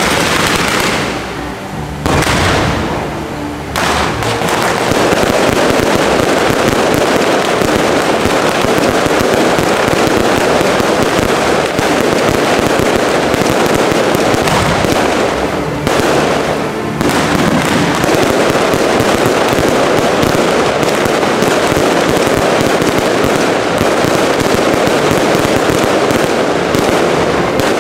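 Aerial fireworks show: a few separate bangs in the first four seconds, then a dense, continuous barrage of shell bursts and crackling that eases briefly about sixteen seconds in.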